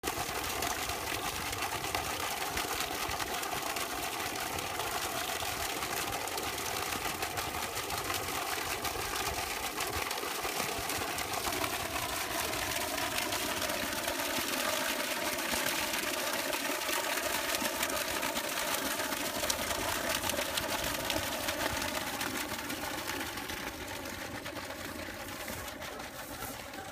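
A stream of overflow water falling from the top of a concrete water tank and splashing onto the flooded ground at its base, a steady rushing splash that eases off near the end.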